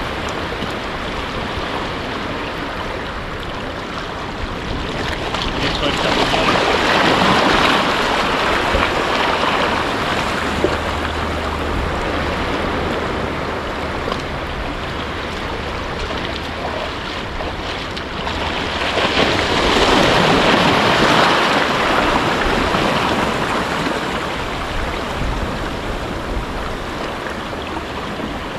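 Sea surf washing in as a steady rushing wash. It swells twice to a louder surge, about six seconds in and again near twenty seconds.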